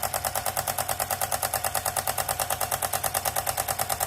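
Sewing machine running fast with no thread in, a steady rapid clatter of about ten stitch cycles a second, working in a drop of oil just put in the bobbin case.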